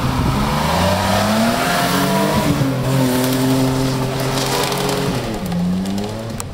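BMW E34 5 Series sedan's engine revving hard with its wheels spinning on grass and dirt, with a hiss from the spinning tyres and flung soil. The revs climb, hold high and steady, dip sharply about five seconds in, then rise again.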